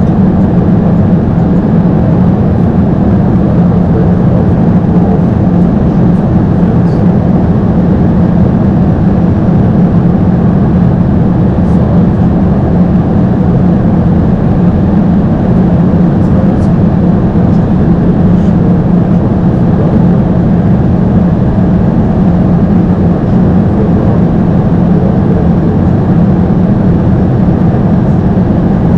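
Airbus A220-300 in flight on approach: a steady, loud rush of airflow and engine noise heard from the nose of the aircraft, unchanging throughout.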